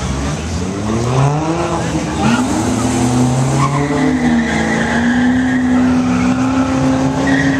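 Drag-racing cars launching off the line at full throttle, the engine note rising in pitch through a couple of gear changes, then holding a steady high pitch as they run down the strip.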